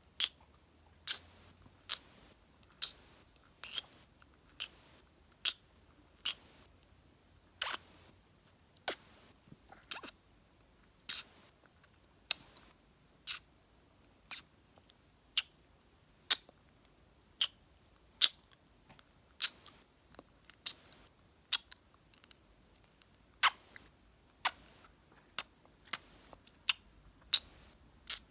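Close-miked kissing sounds: short, sharp lip smacks, about one a second, some coming in quick pairs.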